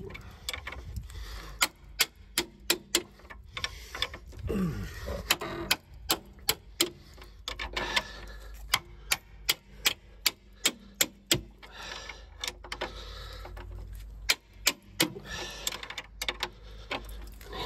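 Socket ratchet clicking in quick runs of sharp ticks as it winds a rusty nut off a Range Rover L322's rear upper suspension bush bolt, the nut now turning after being heated and hammered.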